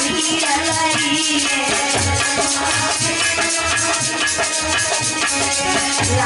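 Devotional aarti performed live: a boy's singing voice through a microphone over a harmonium, with rhythmic rattling percussion keeping a steady beat.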